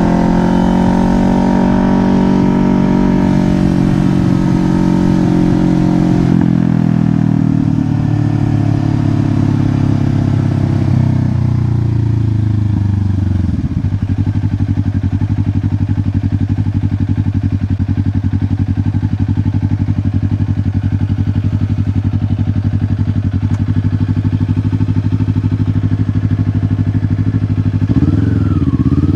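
2024 Kawasaki Ninja 500's parallel-twin engine running: its pitch eases down over the first several seconds, steps lower, holds a steady low note for about half the time, then rises again near the end as the throttle opens.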